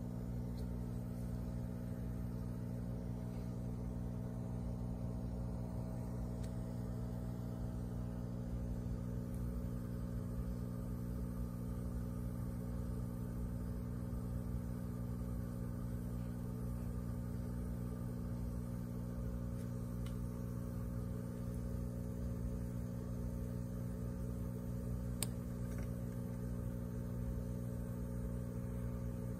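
Steady low mechanical hum of aquarium equipment, evenly pitched with a faint rumble underneath, and one faint click near the end.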